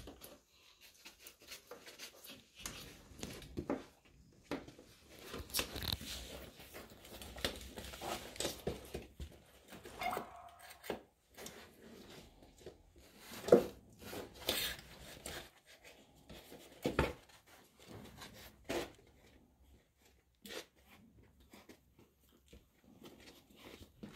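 Labrador Retriever puppies shuffling on a pen mat: faint, scattered rustles, scuffs and light taps, with one sharper knock about halfway through.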